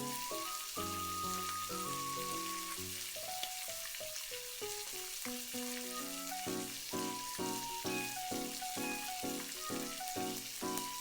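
Egg mixture sizzling steadily in a hot frying pan, with light background music playing a run of short notes.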